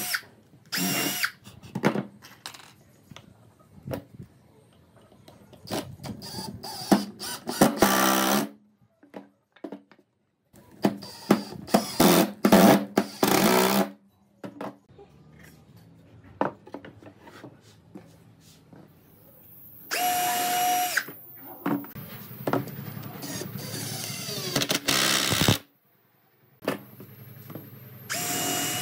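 A cordless impact driver driving wood screws into a pine frame in about six separate bursts of one to three seconds each, with knocks from handling the boards in between.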